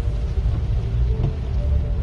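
Steady low rumble of a vehicle driving on a dirt road, heard from inside the cabin, with faint music playing under it.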